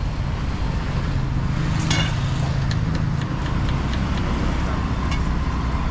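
Street traffic: a motor vehicle's engine running close by as a steady low hum, its pitch dropping about three seconds in.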